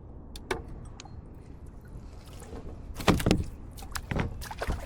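Knocks and clatter on a fishing kayak: a single click about half a second in, a loud cluster of knocks around three seconds, and a few more near the end, over a low steady rumble.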